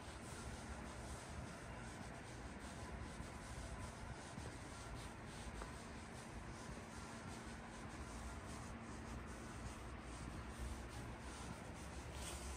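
Faint outdoor ambience: a steady low rumble with soft rustling and scuffing close to the microphone, and a faint steady hum through the middle.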